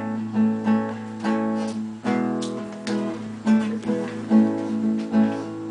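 Backing music: an acoustic guitar strumming chords in a steady rhythm, with no singing.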